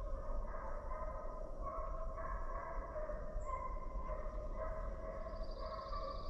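A pack of deer hounds baying on a track, several long overlapping calls that shift in pitch.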